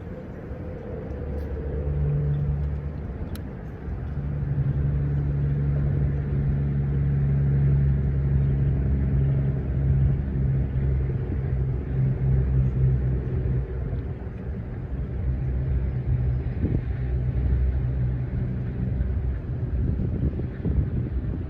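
A low, steady engine drone, growing louder about two and four seconds in and holding on.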